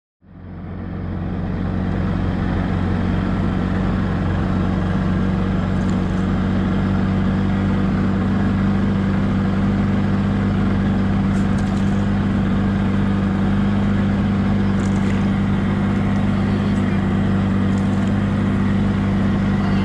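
A 9.9 hp Yamaha Enduro outboard motor running steadily at cruising speed, a constant low hum with water rushing past the hull; it fades in over the first second or two.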